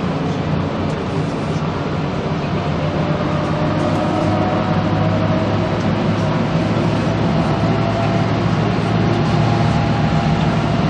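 A coach's engine and road noise heard from inside the cabin while driving: a steady drone with no breaks.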